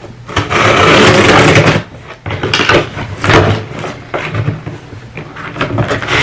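Cardboard shipping box being torn open: a long rip of packing tape near the start, then shorter scrapes and rustles as the cardboard flaps are pulled apart.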